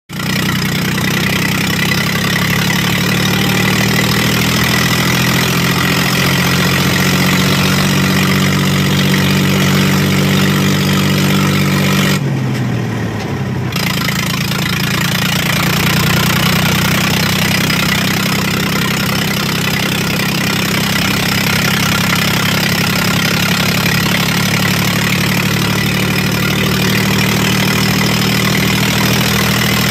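Mahindra tractor's diesel engine running with no silencer on the exhaust, a loud, steady unmuffled note as the tractor drives along. About twelve seconds in the engine note falls briefly, then picks up again.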